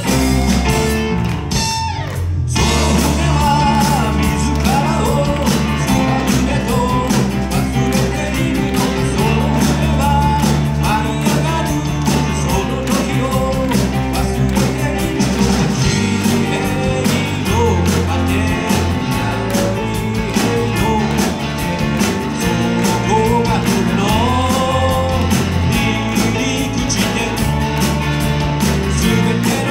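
Live rock band playing: electric guitars, bass guitar and a drum kit with a steady beat, with a man singing the lead melody over them.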